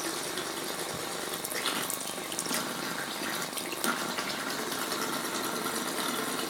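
Tap water running steadily into a sink as a bowl is rinsed out, with a few light knocks.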